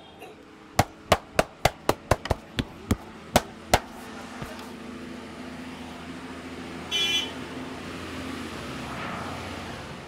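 A quick run of about eleven sharp cracks over three seconds as the man's arm and shoulder are stretched and worked in a joint-cracking massage. About seven seconds in, a car horn gives a short toot over street background noise.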